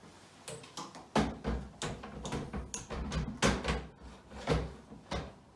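Irregular plastic clunks and knocks as a bidet toilet seat is fitted onto the toilet bowl, starting about a second in.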